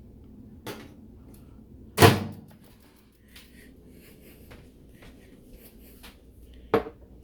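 Microwave oven door being opened and shut as a bowl of warmed water is taken out: a small click, a loud knock about two seconds in, and a sharp click near the end.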